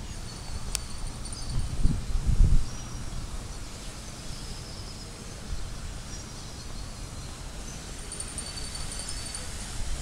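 Outdoor ambience with wind buffeting the microphone in gusts, strongest about two seconds in. A faint, high, pulsing trill comes in near the end.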